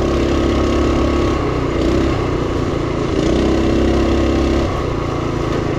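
Duromax 212cc single-cylinder engine on a mini bike running under way, pulling harder for two stretches and easing off in between.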